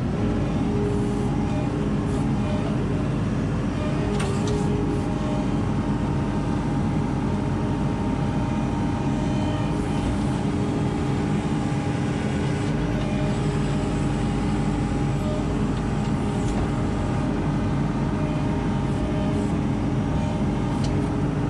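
Compact track loader's diesel engine running steadily under work, heard from the operator's seat in the open cab, as the ASV RT-40 digs with its bucket.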